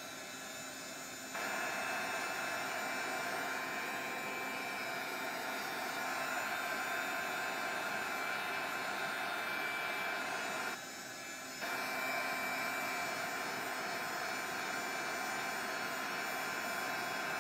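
Handheld craft heat gun running, its fan blowing hot air in a steady rush. It gets louder about a second in and dips briefly around eleven seconds in before rising again.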